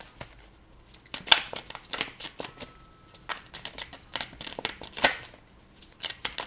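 A deck of tarot cards being shuffled by hand: a quick run of papery flicks and slaps as the cards slide over one another, starting about a second in, with a short lull near the end.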